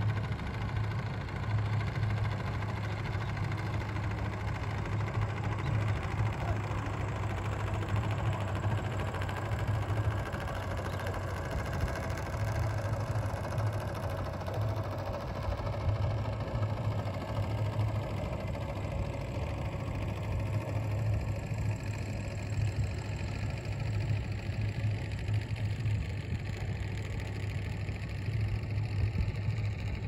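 Boat engine running steadily, a low even drone that neither rises nor fades.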